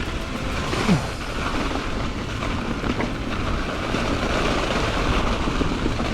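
Mountain bike rolling fast down a dirt forest singletrack: a steady rush of wind over the microphone and knobby tyres running over dirt and leaves, with a short knock about a second in.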